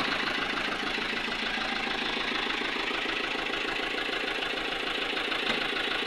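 Fiat 640 tractor's diesel engine running steadily with an even, rapid beat.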